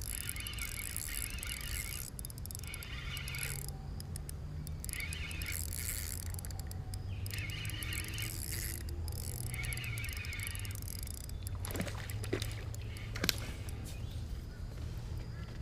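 Calls from the creek-side bush, repeating in buzzy bursts about a second long with short gaps, over a steady low rumble of wind. A few sharp clicks come near the end.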